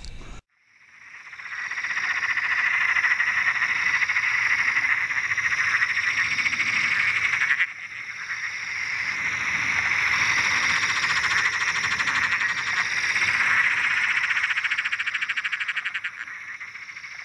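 A dense chorus of frogs calling, a steady mass of rapid pulsed trills. It fades in, breaks off for a moment about seven and a half seconds in, then carries on and fades near the end.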